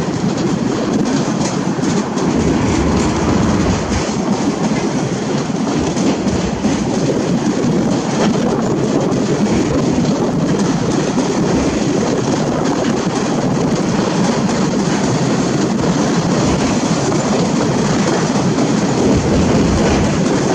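Ballast train's empty hopper wagons rolling steadily past on the rails, with wind buffeting the microphone.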